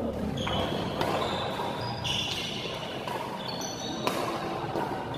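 Badminton rackets hitting a shuttlecock in a fast doubles rally: a string of sharp hits, one of them a jump smash about four seconds in. Short high squeaks of shoes on the court floor come between the hits.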